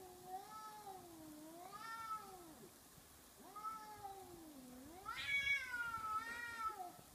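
Two cats yowling at each other in long, wavering drawn-out calls, the loudest and highest near the end.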